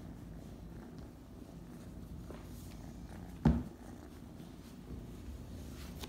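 Kitten purring steadily while being stroked, with one sudden loud thump about halfway through.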